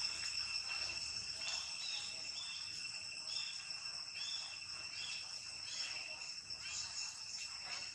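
Steady high-pitched insect drone in two even tones, with a series of short chirps over it.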